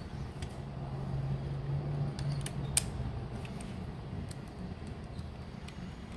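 Light metallic clicks and clinks of a socket on a long wobble extension being fitted to and turned on engine-case bolts, the sharpest click a little under three seconds in. A low steady hum runs underneath for the first couple of seconds.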